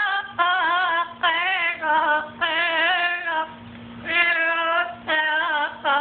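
Amazon parrot singing in a human-like voice: a string of short wordless phrases with a wavering, wobbling pitch, broken by brief gaps and one longer pause past the middle.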